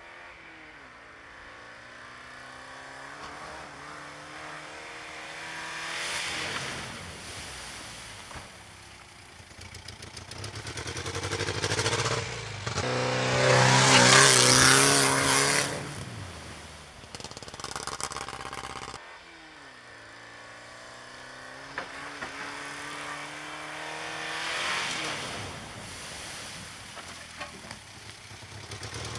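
Ford Fiesta driving hard through a water-filled dirt-track puddle: the engine revs rise and drop as it goes through the gears. The loudest part, around the middle, is the car passing close with a rush of splashing water, and a second pass builds near the end.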